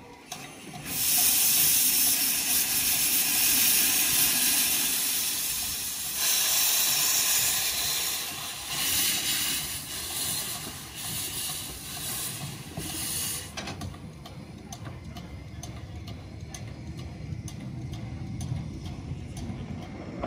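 Narrow-gauge saddle-tank steam locomotive 'Sir Haydn' starting away, hissing loudly as steam blows from its open cylinder drain cocks, the hiss surging in pulses with the exhaust beats. After about 13 seconds the hiss cuts off, leaving a quieter running sound with light, regular ticks.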